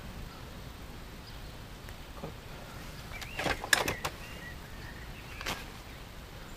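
Fishing tackle being handled: a few sharp plastic clicks and knocks, the loudest a quick cluster about three and a half seconds in, over a quiet steady outdoor background.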